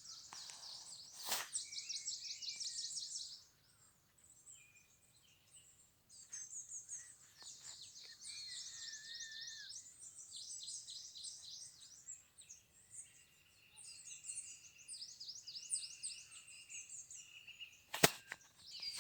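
Several wild birds singing at once in quick, high, repeated trills and chirps, with a short lull a few seconds in. A sharp click sounds about a second in and a louder one near the end.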